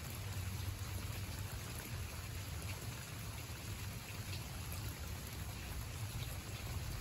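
Steady rain falling on a garden, with separate drops ticking here and there over an even hiss and a low rumble underneath.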